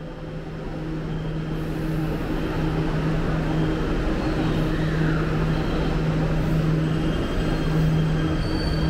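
MRT metro train at the platform, a steady low hum over a rumble, growing louder over the first two seconds.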